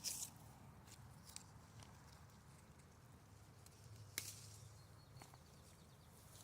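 Quiet hand-picking of peaches from a tree: a brief brush of leaves right at the start, then a few soft clicks and a sharper snap about four seconds in.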